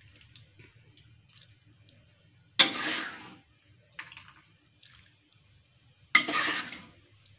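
Metal ladle scooping soupy sauce out of a wok and pouring it into a glass serving bowl, twice: once about a third of the way in and again near the end. Each pour starts sharply and splashes for under a second, with a few faint clinks between them.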